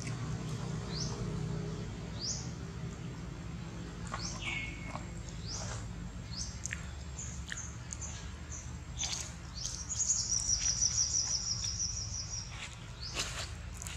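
Wild birds chirping: short rising high calls every second or so, with a fast high trill about ten seconds in that lasts a couple of seconds and is the loudest sound. A steady low rumble runs underneath.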